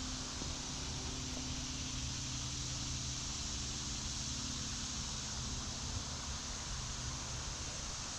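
Steady woodland ambience: an even high hiss of a creek and insects, over a faint low steady drone.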